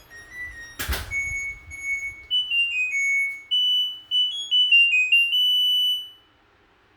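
LG washing machine's buzzer playing its electronic beep melody, the tune that signals the wash cycle has finished; a sharp click about a second in. The melody stops abruptly near the end.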